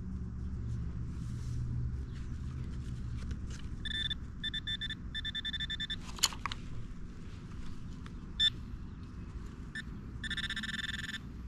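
Handheld metal-detecting pinpointer giving short buzzing beeps at one fixed pitch, on and off from about four seconds in, as it picks up a metal target in a dug plug of soil; the longest run comes near the end. A low steady rumble sits underneath, with a single click about six seconds in.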